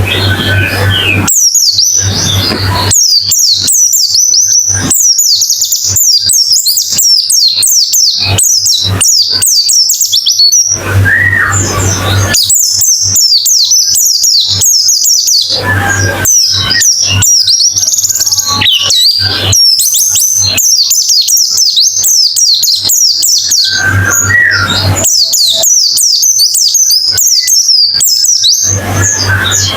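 White-eyes (pleci) singing a fast, nonstop high twittering song of rapid chirps. A few short bursts of hiss with a low hum come and go.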